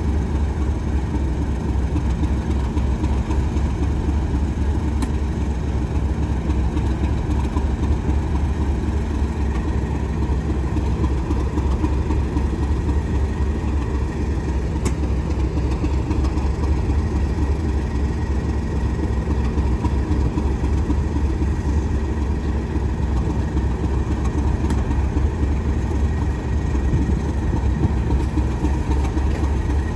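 A heavy engine idling steadily: a deep, unchanging hum with no revving.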